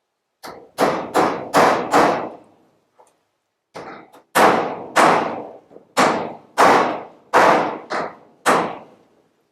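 Hammer blows driving galvanized metal stud-protector plates onto a stud, about a dozen sharp strikes, each ringing briefly. They come in two runs with a short pause around three seconds in.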